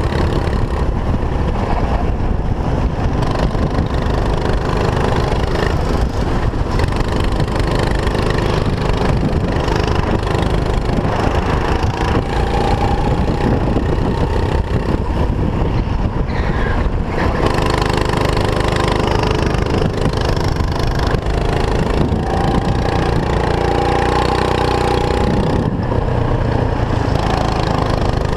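Go-kart engine heard on board the kart, running hard through a lap, its pitch rising and falling as the revs change.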